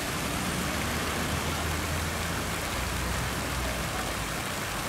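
Steady rush of water splashing from a fountain, with a low hum of traffic underneath.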